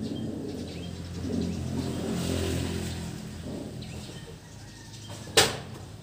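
A motor vehicle passing, its engine hum swelling over a second or two and then fading. About five seconds in there is a single sharp knock.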